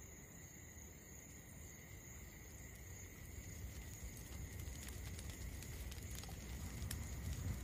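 Faint night ambience: a low rumble that slowly swells, under a thin steady high tone, with a few soft taps in the second half.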